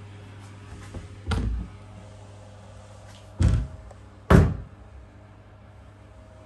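Three dull thumps over a low steady hum. The second and third come about a second apart, and the last is the loudest.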